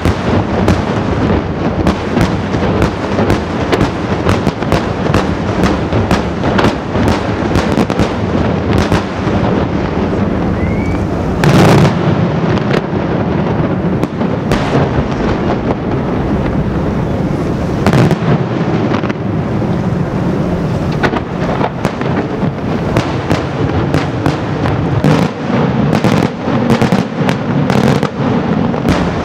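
Daytime fireworks: a dense, continuous barrage of rapid bangs from aerial shells bursting, with a heavier, louder boom about eleven seconds in and another about eighteen seconds in.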